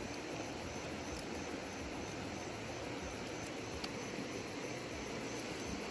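Steady rushing of a river flowing over stones, an even noise with no breaks, with a few faint ticks.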